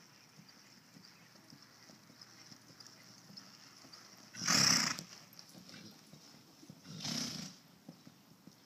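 A horse snorting twice, two loud blown breaths about two and a half seconds apart, the first the louder, over soft hoof steps.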